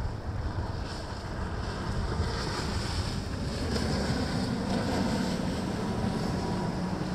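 Boat engines running with a steady low hum under the rush of waves and water, with wind buffeting the microphone.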